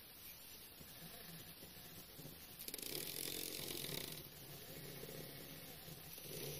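Small stepper motors from salvaged DVD drives buzzing as they step the pen plotter's axes, with a louder, hissier stretch of about a second and a half near the middle.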